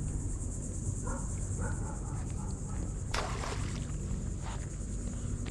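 Insects buzzing steadily, a high, finely pulsing drone, over low background rumble, with one brief knock about three seconds in.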